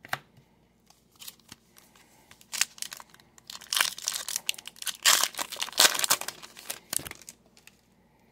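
Wrapper of an Upper Deck hockey card pack being torn open and crinkled by hand. It makes a run of crackles that thickens and is loudest in the middle, then stops about a second before the end.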